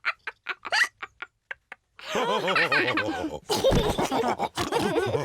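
Cartoon pig characters laughing: a few short giggles at first, then loud group laughter from about two seconds in, broken by a pause and then several pig snorts.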